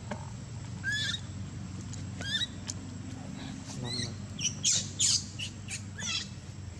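Infant long-tailed macaque giving short, high squeaking calls that glide upward, about one every second and a half, with a louder quick run of them about five seconds in.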